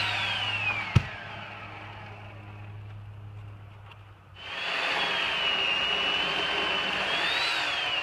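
Chainsaw cutting up in the tree, its revs falling away as a cut finishes, then a sharp thud about a second in as the cut limb hits the ground. The saw idles low for a few seconds, then revs up and cuts steadily again from about four seconds in.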